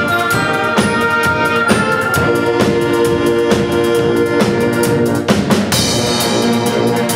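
A student band of strings, winds and percussion playing live, with drum kit and bass drum beating under held chords. A cymbal crash comes about six seconds in.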